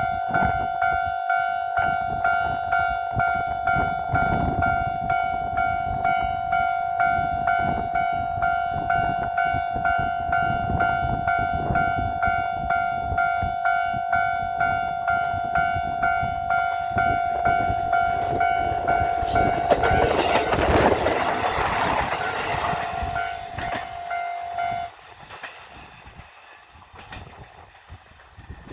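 Japanese level-crossing alarm ringing steadily, about one and a half strikes a second. About 19 s in the JR Nanohana train passes over the crossing, loud, with its wheels clattering over the rail joints. The alarm stops about 25 s in, leaving the fading rumble of the departing train.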